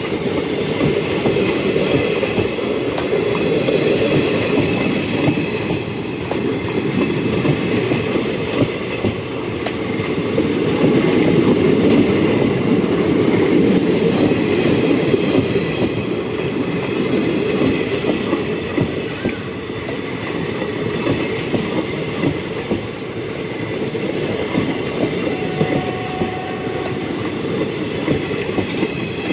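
Railway wagons rolling along the track in a steady rumble, their wheels clattering over the rail joints. The sound swells about ten seconds in and eases off again.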